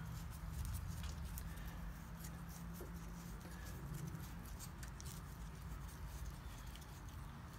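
Faint, scattered light clicks and taps of small metal parts being handled in the open oil pump housing of a VW Beetle engine case, over a low steady hum.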